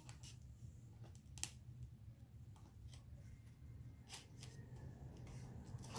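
Faint, scattered small clicks and taps of hands handling snack food and packaging on a table, with one sharper click about a second and a half in, over a low steady hum.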